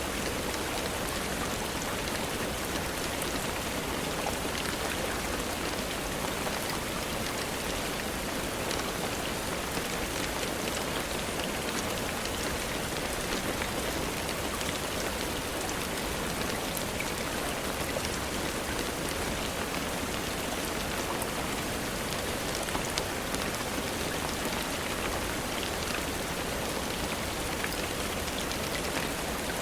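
Steady rainfall, an even hiss with scattered faint ticks of drops.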